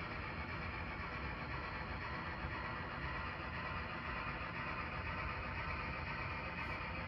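N-scale model train running on track: a steady whir of the small motor and wheels rolling on the rails.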